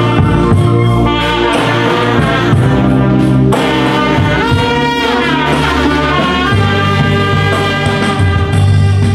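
A Vietnamese funeral brass band playing: trumpets, trombone and saxophones holding a melody together over an electronic keyboard with a steady bass line.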